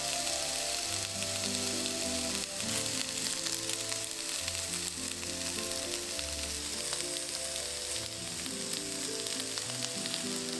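Eggplant chunks sizzling and crackling as they pan-fry in oil, a steady hiss that cuts off suddenly at the end, with soft background music underneath.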